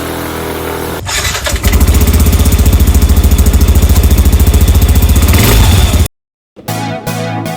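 Yamaha Tricity 155 scooter's single-cylinder engine running steadily. About a second in it becomes a much louder, rapid, even beat, which cuts off suddenly. After a brief silence, keyboard music starts near the end.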